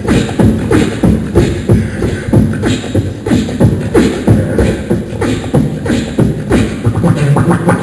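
Beatboxing into a microphone through a stage PA: a steady, even rhythm of vocal drum hits, about three a second.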